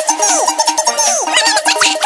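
Electronic music with a quick beat and repeated falling, swooping synth notes.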